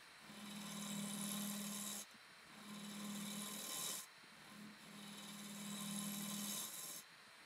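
Skew chisel cutting a dovetail recess into a laminated wooden platter spinning on a lathe: three passes of scraping, each with a steady low hum, each stopping abruptly when the tool comes off the wood.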